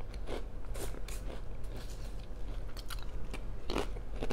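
Close-miked chewing and crunching of food, with irregular crisp crunches about every half second.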